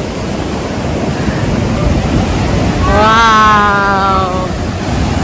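Steady rush of a waterfall. About three seconds in, a single long, drawn-out voice call sounds for about a second and a half, falling slightly in pitch.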